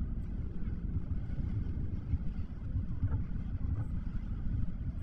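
A car driving, heard from inside: a steady low rumble of engine and road noise.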